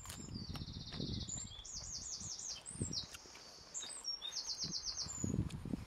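A songbird singing in repeated high trills and chirps, over the crunch and chew of a raw, fibrous thistle stem being bitten and eaten.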